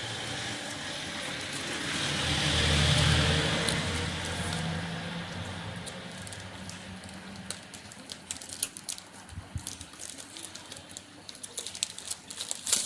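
Handling noise from unboxing a phone: a run of short sharp clicks and crackles, like packaging being opened, through the second half. It follows a low hum that swells to a peak about three seconds in and then fades.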